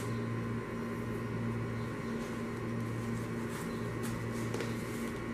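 Steady low hum of a running appliance motor, with a couple of faint soft ticks.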